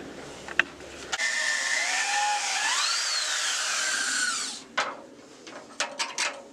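Power drill running for about three seconds, its motor pitch rising and falling with the trigger as it drills a hole for a door hinge, then a few sharp clicks and knocks.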